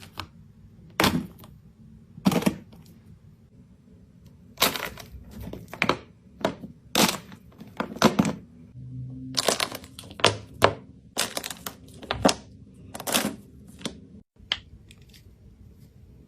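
An irregular series of sharp cracks and knocks, about a dozen, some quick pairs, the kind made when something brittle is broken or crushed by hand.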